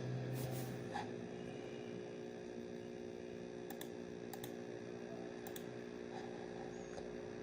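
A few isolated clicks of a computer mouse, spread over several seconds, over a steady low electrical hum.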